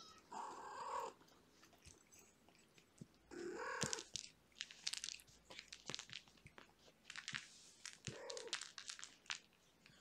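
A cat meowing three times, each call under a second: just after the start, about three and a half seconds in, and about eight seconds in. Quick soft clicks and rustles from the cats moving close by fill the gaps.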